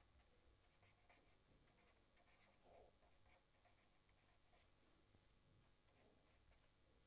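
Very faint scratching of a pen on paper in short, irregular strokes as words are handwritten, with one slightly louder brief squeak about three seconds in.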